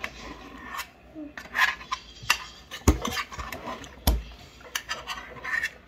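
Spoon clinking and scraping against a stainless steel divided meal tray, in scattered sharp clicks, with two duller knocks about three and four seconds in.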